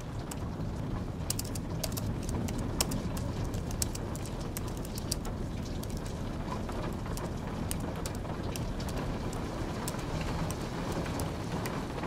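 Quick, irregular clicking of typing on a low-profile computer keyboard over a steady hiss of rain.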